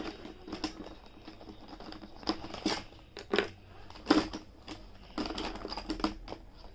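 Pens being handled and taken out of a pencil pouch: rustling, with a string of light, irregular clicks and knocks.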